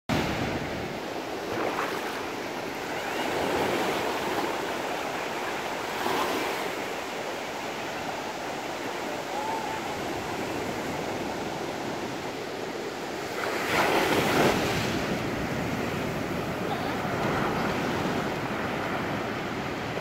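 Small waves breaking and washing up a sandy beach: a steady hiss of surf that swells with each breaking wave, the loudest crash about fourteen seconds in.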